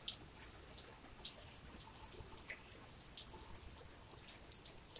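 Light rain with scattered raindrops and drips ticking at uneven intervals; the rain has eased off from a heavy downpour.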